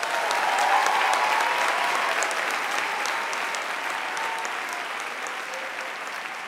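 Audience applauding, swelling within the first second and then slowly tapering off.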